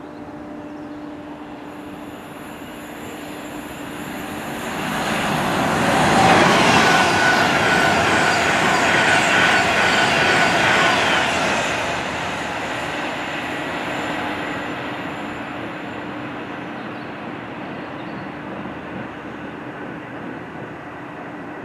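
Avanti West Coast Class 390 Pendolino electric train running through at speed: a rush of wheel and air noise builds from about four seconds in, stays loudest for about six seconds with a thin steady whine, then fades as the train moves away.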